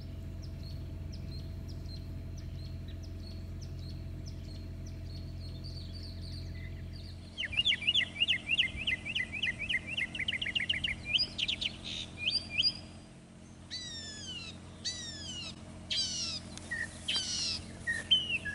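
Birds singing. At first there are small repeated high chirps over a low steady rumble; about seven seconds in this gives way to a fast run of chirps, followed by loud clear whistles that slide downward, repeated several times.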